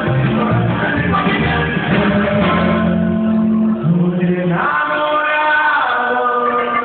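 Norteño band playing a corrido, with male singing over plucked string instruments.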